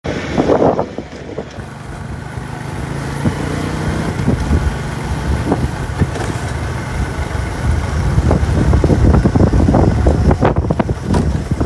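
A motor vehicle running, a steady low rumble with scattered knocks.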